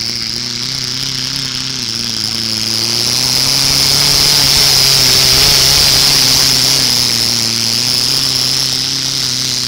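Modified 500 kg class pulling tractor's engine running flat out under load as it drags a weight-transfer sled, a steady engine note with a high whine over it. It grows louder as the tractor passes, loudest about halfway through, then eases off a little.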